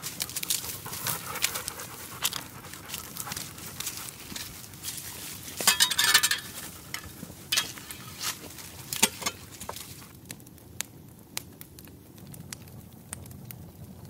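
Dry leaves, grass and twigs crunching and snapping as someone pushes on foot through dry undergrowth, with a louder rustling burst about six seconds in. The crackling thins out after about ten seconds.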